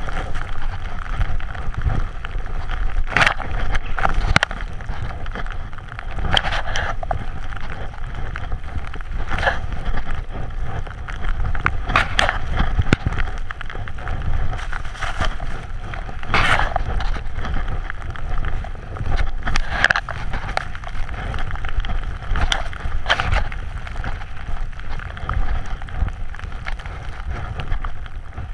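A snowboard running through deep powder snow, with wind rushing over the camera microphone as a steady rumble. A louder swish of snow comes every few seconds as the board turns.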